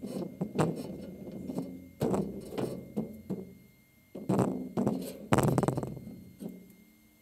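Irregular knocks and clunks, about a dozen in all, the loudest cluster about four to six seconds in, fading away near the end.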